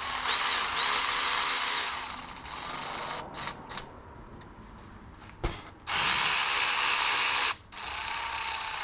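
Milwaukee Fuel cordless ratchet spinning bolts in on the golf cart engine: a loud run with a thin high whine for about two seconds, a few short bursts, a pause, then another loud run and a softer one near the end. The bolts are only being run in, not tightened.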